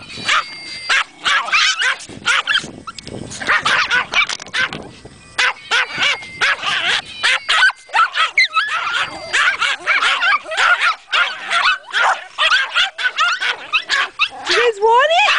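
A pack of small dogs, Yorkshire terriers among them, barking and yapping excitedly in quick, overlapping high-pitched barks, with a drawn-out rising cry near the end.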